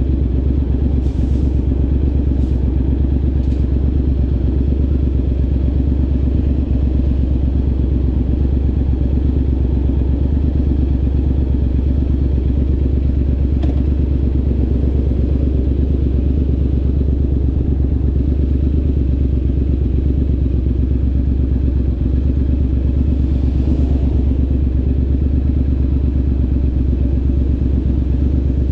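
Triumph Scrambler 900's 900 cc parallel-twin idling steadily through an aftermarket ZARD exhaust, a low, even pulse at constant level.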